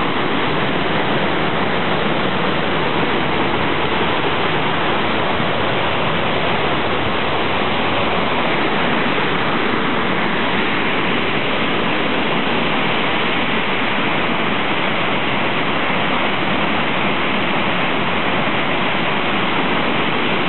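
Costa Rica's La Paz waterfall plunging into its rocky pool: a steady, loud rush of falling water.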